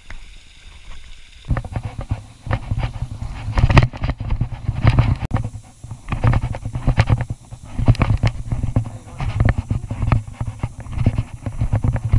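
Irregular knocks, scuffs and low thuds of footsteps scrambling over rock, with a body-worn GoPro camera jostling as the wearer climbs. The sound starts abruptly about a second and a half in, after a faint start.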